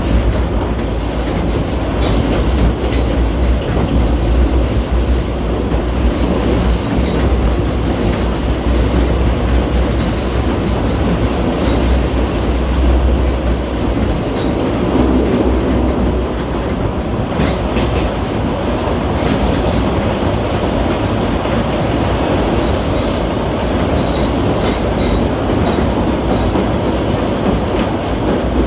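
A Kurobe Gorge Railway narrow-gauge train running, heard from aboard a Ha-type passenger car hauled by an ED10 electric locomotive: a steady rumble of wheels on the track with scattered faint clicks.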